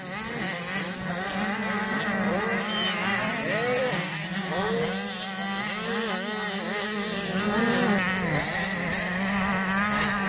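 Several 85cc two-stroke motocross bikes racing on a dirt track, their engines revving up and down in pitch, over a steady low drone.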